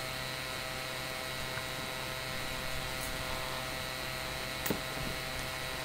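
Steady electrical hum with a constant hiss underneath, and one light click about three-quarters of the way through.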